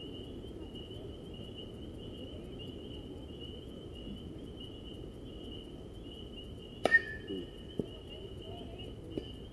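A baseball struck by a metal bat about seven seconds in: one sharp ping with a brief ringing tone, followed by two lighter knocks. Insects trill steadily underneath.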